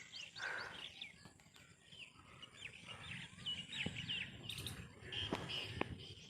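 Small birds chirping in a busy series of short, quickly falling high chirps, with a few sharp clicks in the second half.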